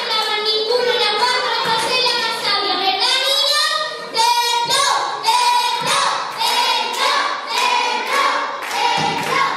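A group of children singing a song together, with hands clapping along.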